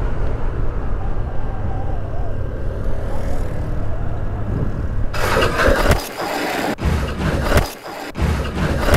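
Wind rushing over the microphone and a Honda motorcycle's engine running while it is ridden through bends. About five seconds in, the wind noise suddenly gets much louder and turns choppy, buffeting in gusts.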